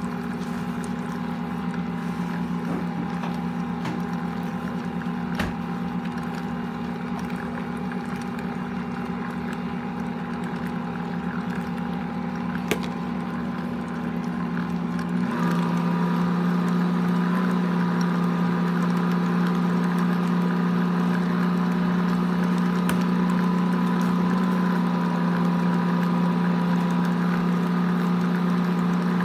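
Ankarsrum stand mixer motor running steadily while creaming butter and powdered sugar in its plastic bowl, a low even hum. About halfway through the hum steps up louder and stays there.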